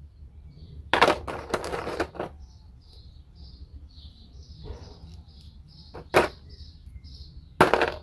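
Small plastic action-figure parts handled and set into a clear plastic blister tray: bursts of clicking and crinkling, loudest about a second in and again near the end. A faint high chirping repeats about twice a second behind it.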